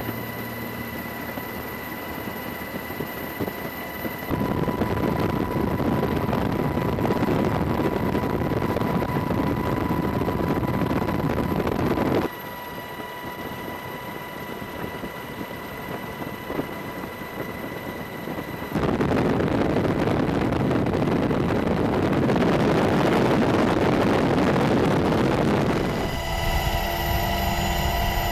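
Steady rushing engine and wind noise of an aircraft or helicopter filming from the air, with a faint steady whine. It jumps louder at about 4 seconds, drops at about 12, rises again at about 19 and changes at about 26 as the shots cut.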